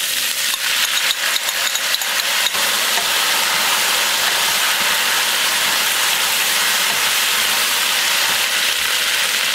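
A bowl of sauce sizzling hard as it hits a hot wok of fried beef and onions. A wooden spatula stirs it, with quick scraping clicks through the first couple of seconds, then the sizzle settles into a steady hiss.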